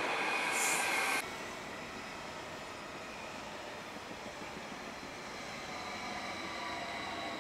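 TILO Stadler FLIRT electric multiple unit running through the station: rumble and rail noise, with a steady high tone over it until a sudden drop to quieter running a little over a second in. After the drop, faint high whining tones slowly rise.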